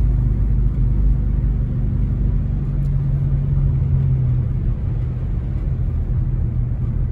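Steady low rumble of a car's engine and tyres, heard from inside the cabin while driving slowly on wet pavement. A low hum swells a little about three seconds in and eases off a second and a half later.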